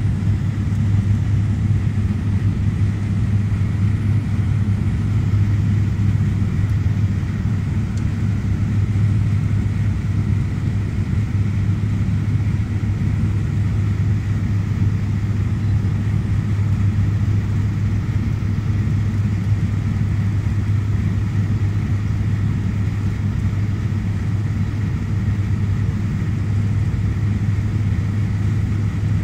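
Steady cabin drone of a Fokker 50's twin turboprop engines and six-bladed propellers in flight on approach, heard inside the passenger cabin: an even, loud hum with a strong low tone that holds without a change.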